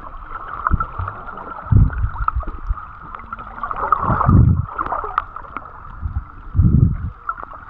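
Small sea waves washing and sloshing at the shoreline, with a low rumbling swell about every two and a half seconds.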